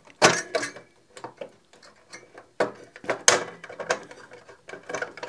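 Circuit board being worked loose and pulled up off its long header pins inside a Krell KAV-300i amplifier chassis: a series of sharp clicks and scraping knocks, loudest about a quarter-second in and again around three seconds in.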